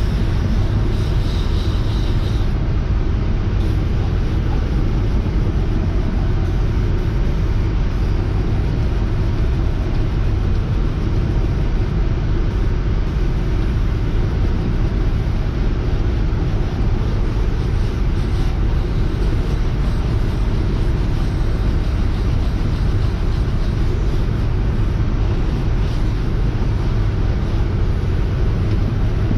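Upholstery cleaning machine running steadily, a constant motor noise without let-up, while its hose wand is worked over a cloth truck seat.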